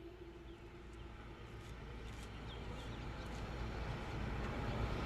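A Whelen Vortex R4 tornado siren's wail tone fading out over the first second or so, leaving a low rumble that grows steadily louder, with a few faint short chirps.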